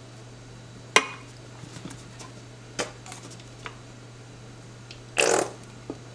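Plastic squeeze bottle of barbecue sauce sputtering as sauce is squeezed out, a short spurt of air and sauce a little after five seconds in. Before it come a sharp click about a second in and a few light taps.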